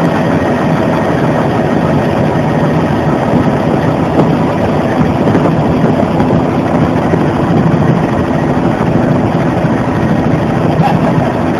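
Bell 206 JetRanger helicopter in flight, heard from inside the cabin: a steady, loud drone of the turbine engine and rotor, with a faint steady hum in it.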